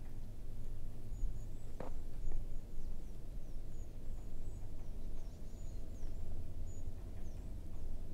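A hiker's footsteps on a winter forest trail with a low rumble of movement, and a scatter of very high, thin, short calls from small birds. There is one sharp click about two seconds in.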